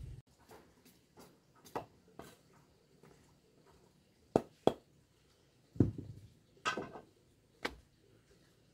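Scattered knocks and scuffs of someone handling things and stepping on hard dirt ground: about seven separate short hits with quiet between them. The loudest are a quick pair about four and a half seconds in, followed by a longer rustling scrape near seven seconds.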